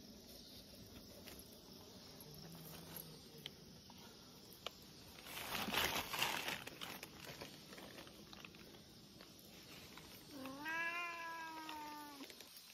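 A cat meowing once near the end, one long drawn-out meow that rises and then falls. A brief rush of noise comes about halfway through.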